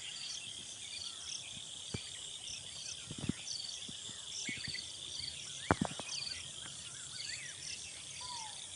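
A steady high-pitched insect chorus with short chirps repeating about once a second. A few brief soft clicks stand out, the clearest about three and six seconds in.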